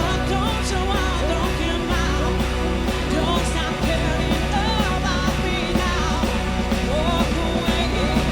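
Live rock cover band playing with a singer over electric bass and a drum kit keeping a steady beat.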